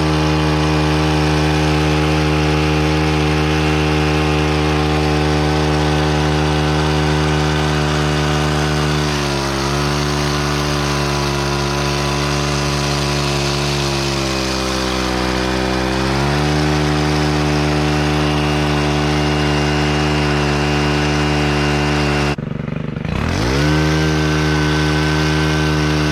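Gas-engine hedge trimmer running steadily at high speed, its pitch dipping briefly about nine seconds in and again for a couple of seconds a little later. Near the end it cuts out for a moment, then comes back with a rising pitch.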